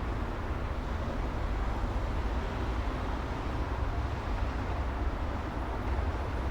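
City street traffic: a steady, low rumble of vehicles passing, with no single event standing out.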